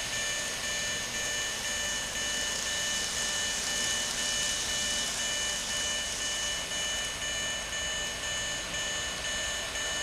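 Electronic level-crossing warning bell ringing over and over at a steady pace over a steady hiss. The alarm is on because a train is inside the detection section of one of the two tracks.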